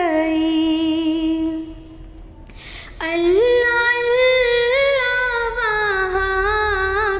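A woman singing a naat unaccompanied, holding long drawn-out notes without words. The first note fades out about two seconds in; after a short pause a new, gently wavering phrase begins about three seconds in.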